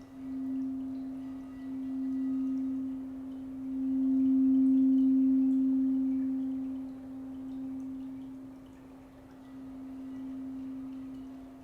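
Root chakra crystal singing bowl sung with a ball-ended mallet worked against its side: one steady low hum that swells and fades. It is loudest about four to six seconds in.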